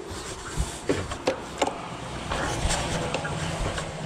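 Motorcycle engine idling steadily, with a few light clicks and knocks in the first couple of seconds.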